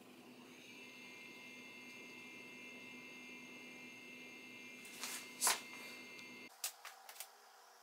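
Steady electrical hum with a faint high whine, broken by a couple of sharp taps about five seconds in and a quick run of small clicks soon after; the hum cuts off suddenly just before the clicks.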